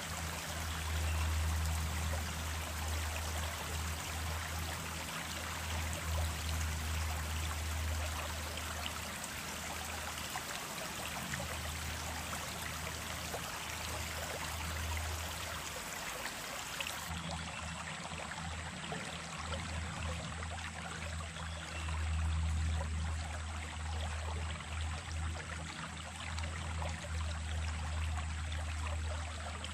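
Small stream running steadily, an even rush of water with a low rumble underneath that swells and fades.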